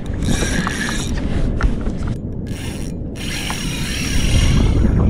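Fishing reel's drag ratcheting as a hooked fish, which the angler takes for a Spanish mackerel, pulls line from the spool.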